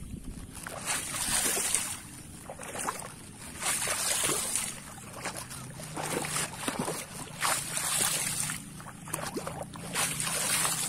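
Muddy shallow water swishing and sloshing as someone wades through it, in surges every second or two.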